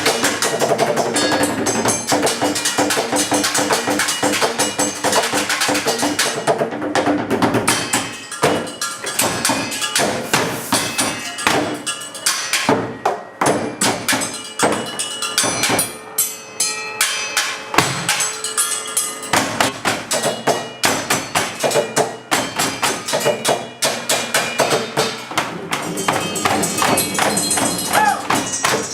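Music with a fast, busy percussive rhythm of sharp strikes over sustained tones.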